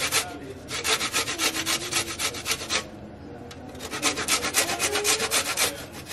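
Garlic being grated on a stainless-steel box grater: quick rasping strokes, several a second, in two runs with a pause of about a second between them.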